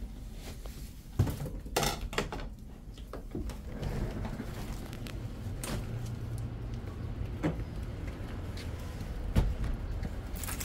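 A door being opened, with sharp knocks and clicks in the first two seconds, then a steady low rumble with scattered clicks of handling and footsteps as a person and dog go out onto concrete.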